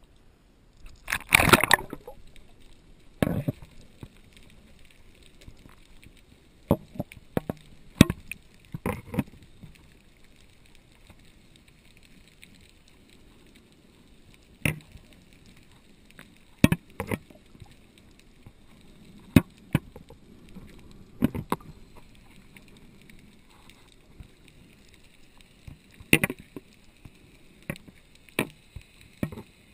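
Action camera dipped into the sea and recording underwater: a splashing rush about a second in as it goes under, then muffled water with scattered sharp clicks and knocks and a faint steady high whine.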